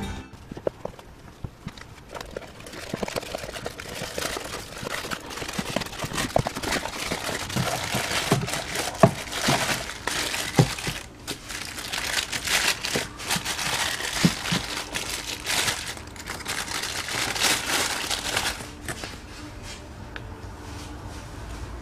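Cardboard box packaging and a paper instruction leaflet being handled and unpacked: crinkling and rustling with a few sharp little knocks. It builds from about two seconds in and quiets near the end.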